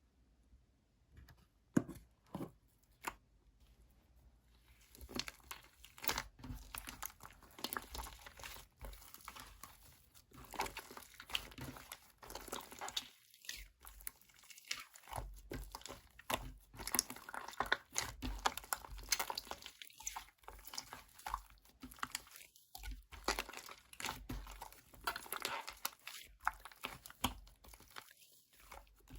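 Clay-mixed slime being squished and kneaded by hand, making crackling, popping clicks as air pockets burst. A few separate clicks at first, then dense crackling from about five seconds in.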